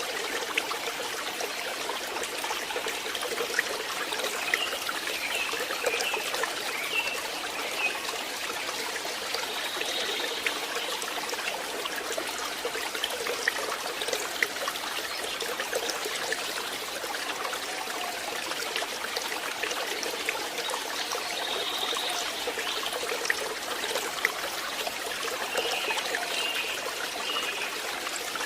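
Stream water trickling and splashing steadily over stones, with many small droplet clicks. Faint high chirps come through a few times.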